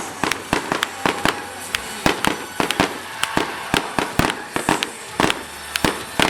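Fireworks display going off in quick, irregular succession: several sharp bangs and pops a second over a continuous crackle.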